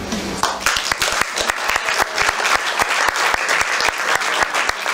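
Audience applauding, the clapping starting about half a second in.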